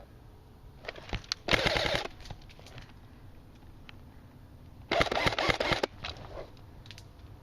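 Airsoft rifle firing two short full-auto bursts of rapid clicks and pops, the first about a second and a half in and a longer one about five seconds in.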